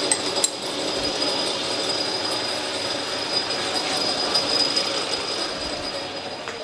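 Metal lathe running under power feed at the end of a threading pass, its gears and drive giving a steady high whine over a mechanical clatter, with two sharp clicks in the first half-second. The noise fades slowly near the end.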